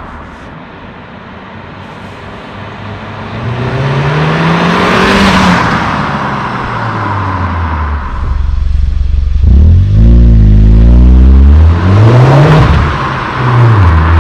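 Volkswagen Scirocco 2.0 TSI turbocharged four-cylinder engine, through a quad-tip Remus rear silencer. It runs at a low steady note, then revs several times, the pitch climbing and falling back. The loudest and deepest rise comes about ten seconds in, and quick short rises follow near the end.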